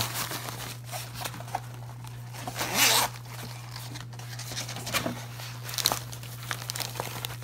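Zipper of a nylon carrying case being pulled open, one loud rasping pull about three seconds in, with rustling and small clicks of the bag fabric being handled over a steady low hum.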